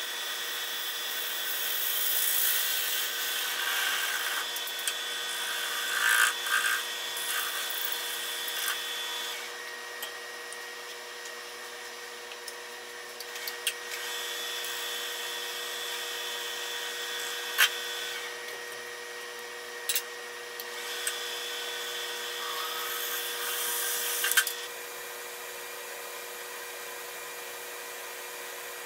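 Wood lathe running with a steady motor whine while a hand-held turning chisel cuts a small spindle piece in the chuck, giving a hissing scrape in three passes with pauses between. A few sharp clicks mark the tool touching and leaving the work. Near the end the cutting stops and only the steady hum remains.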